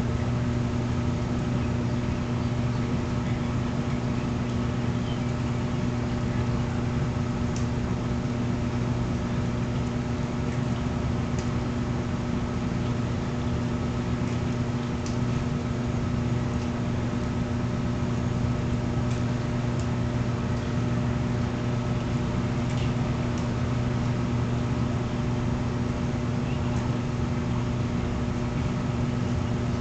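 Steady machine hum, low and even, with a few faint ticks scattered through it.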